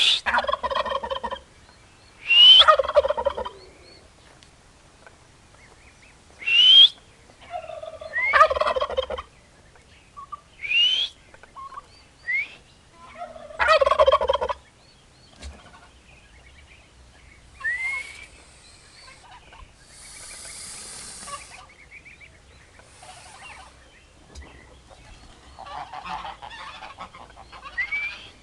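Domestic turkey gobbling over and over: each gobble opens with a quick rising note and breaks into a rapid warbling rattle of about a second, repeated every few seconds with a longer pause partway through.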